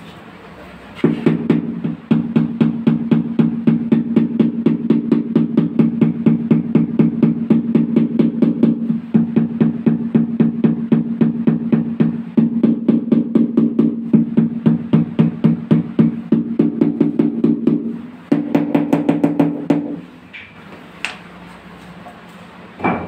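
Rubber mallet tapping a large ceramic floor tile to bed it into the mortar: a fast, even run of dull, low-pitched knocks, about six a second, then after a brief break a shorter run at a slightly higher pitch.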